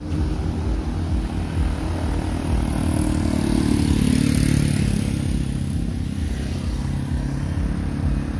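Motorcycles and cars of a convoy driving past with engines running in a steady low rumble; the sound swells as vehicles pass closest about halfway through.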